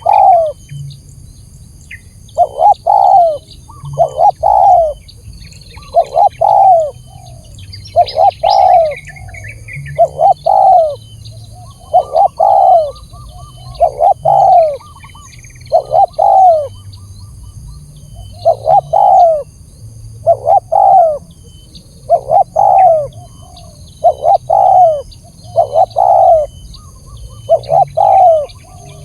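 Spotted dove (tekukur) cooing: a short phrase of falling coos repeated about every two seconds. This is a lure call (suara pikat) used to provoke and attract spotted doves.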